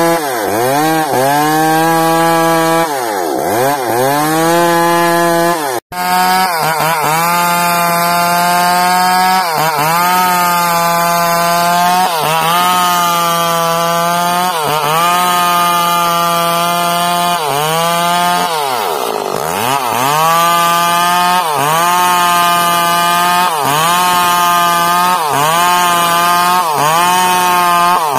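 Chainsaw running at high revs while cutting bayur wood into rafters. The engine note dips sharply and recovers every second or two as the chain bogs under load, with one brief break about six seconds in.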